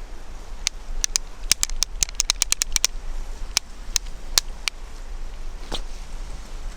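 Low wind rumble on a Rode VideoMicro in a Rode Blimp windshield, with a quick scattered run of sharp clicks and ticks, densest about two seconds in, and a single click near the end.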